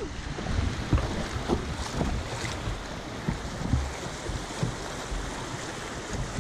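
Rushing white water of a small river rapid around a paddled kayak, with irregular splashes against the hull. Wind buffets the microphone in low thumps.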